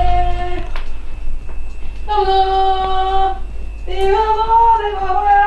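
A person screaming in long, high, held notes, like singing: three drawn-out notes with short breaks between them, over a steady low hum.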